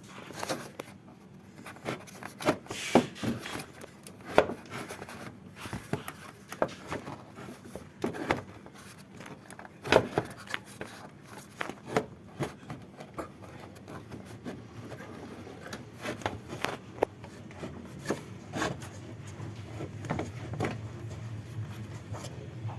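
Irregular knocks, clicks and scraping of hand work on car parts and tools. A low steady hum comes in near the end.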